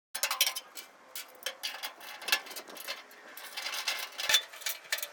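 A series of irregular sharp clicks and light clinks, like small hard objects knocking together, with a louder knock a little after four seconds in.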